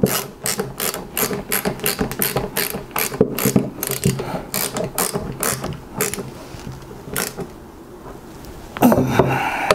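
Ratcheting screwdriver clicking about four times a second while driving the rear action screw into a Savage 64F rifle's action, then slowing to a few scattered clicks. A louder rustle of handling near the end.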